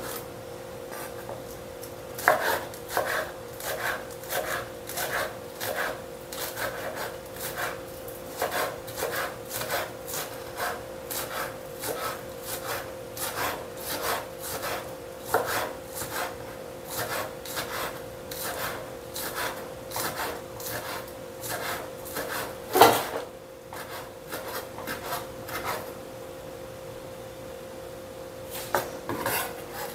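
Knife chopping on a wooden cutting board, steady strokes about two a second, with one louder knock past the middle, over a steady hum.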